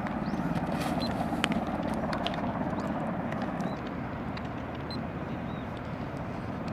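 Steady outdoor background noise, with a few sharp clicks in the first two seconds.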